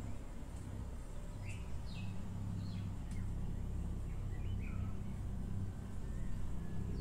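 Steady low rumble with scattered short, high, birdlike chirps that fall in pitch.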